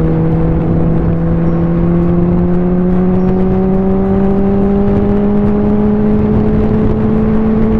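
Benelli 600i's inline-four engine pulling steadily in one gear at highway speed, its note rising slowly and smoothly as the bike gains speed.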